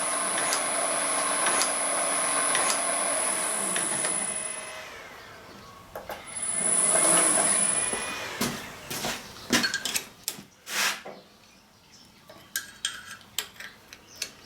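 Motor-driven crusher machine running with a high whine, winding down about four seconds in, briefly run up again and stopped once more. Then a scatter of sharp metallic clicks and knocks as tools are handled to tighten its bearings.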